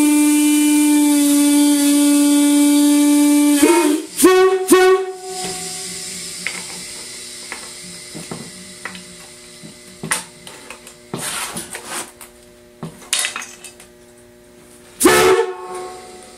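The number 4 bell of a Nathan Airchime M5 locomotive air horn sounding a steady, loud single-bell note while it is being tuned. The note cuts off abruptly about 4 seconds in. Two short blasts follow, then scattered metal clicks and knocks, and one more short blast near the end.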